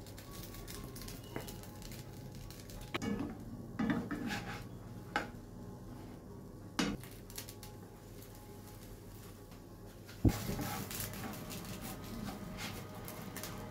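A plastic spatula and wooden chopsticks knocking and scraping against a nonstick frying pan while an egg toast is folded over, a few separate clatters, the loudest about ten seconds in.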